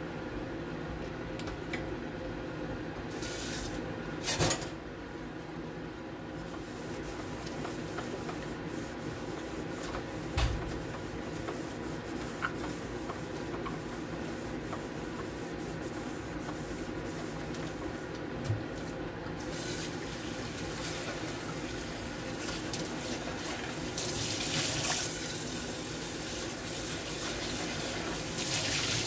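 Dishwashing at a stainless steel sink: a black air-fryer basket is handled and scrubbed with a few sharp knocks against the sink, then about two-thirds of the way in the kitchen tap is turned on and water runs and splashes into the basket as it is rinsed.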